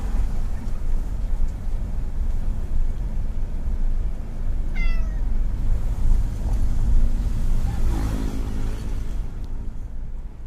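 Steady low rumble of a moving car heard from inside the cabin, with a domestic cat meowing once, briefly, about halfway through.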